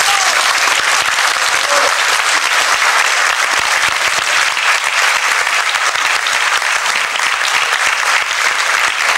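Concert hall audience applauding steadily, a dense sustained clapping.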